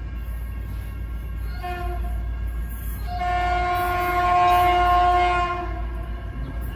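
Caltrain train horn sounding a short blast about a second and a half in, then a long, louder blast from about three seconds in to nearly six seconds, over the low rumble of the approaching train.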